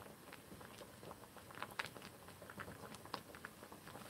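Faint scattered clicks and light taps of cooking at a frying pan of cabbage leaves, with a few sharper ticks about a second and a half in and again near three seconds.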